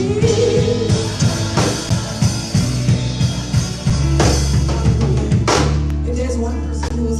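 Live gospel band playing without singing: a drum kit beats a run of quick strikes and fills over bass and keyboard chords for about four seconds, then the music settles into held bass and chords with only occasional hits.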